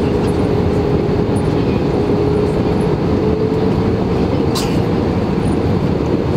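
Airbus A320-216 cabin noise on approach, heard from a window seat by the wing: a steady rush of airflow and engine noise, with the flaps and slats extended. A steady tone runs through it and steps up slightly a little past halfway, and there is one brief click about two-thirds through.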